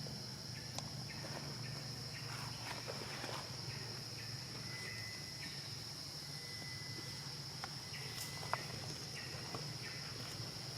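Steady high-pitched insect drone, like crickets or cicadas, with scattered small clicks and rustles.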